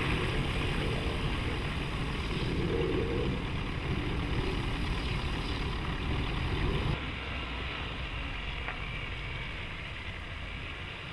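Nissan Navara pickup's 2.3-litre four-cylinder diesel engine running at low speed while the truck creeps through water. About two-thirds of the way in the sound switches to a quieter take of the engine running.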